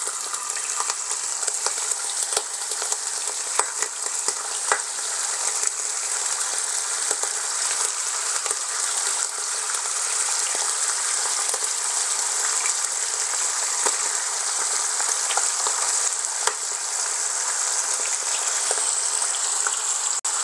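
Bacon sizzling in hot grease in a pan: a steady frying hiss with frequent small pops and crackles, growing a little louder as more raw strips are laid in.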